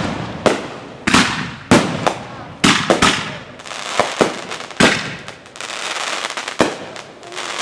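Consumer fireworks going off in a string of sharp bangs, roughly one every half second to a second, each trailing off with crackle. A stretch of steady hissing comes a little past the middle.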